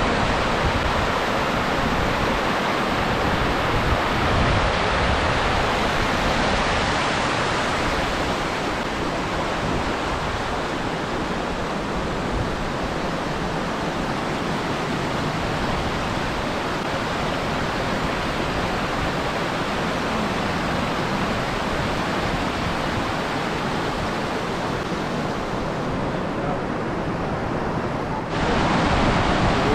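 Steady rush of spring water pouring over a shallow rocky cascade, a continuous even hiss of flowing water. It cuts abruptly to a louder rush near the end.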